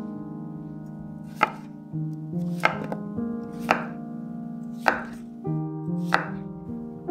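A chef's knife chopping through peeled raw potatoes onto a wooden cutting board: five sharp chops, a little over a second apart, over background music.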